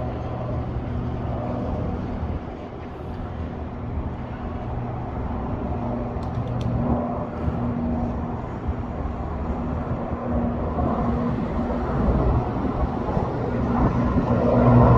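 Puma helicopter flying overhead: a steady low drone with a constant hum, growing louder near the end as the helicopter comes closer.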